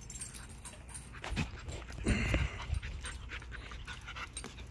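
Dogs playing over a toy, scuffling, with many short clicks and a louder noisy burst about two seconds in.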